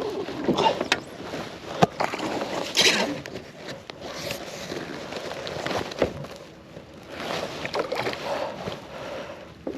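Water splashing and sloshing around a kayak as a hooked small pink snapper is brought in, with a few sharp knocks against the boat.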